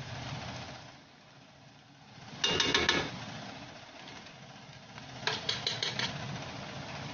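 A metal spoon tapping against the rim of a cooking pot: a quick cluster of clicks about two and a half seconds in, then a run of about six taps near the end, over a steady low rumble.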